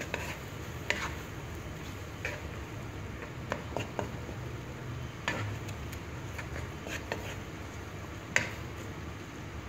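Wooden spatula stirring a cream sauce in a nonstick wok, with scattered light knocks and scrapes against the pan over a faint steady hiss.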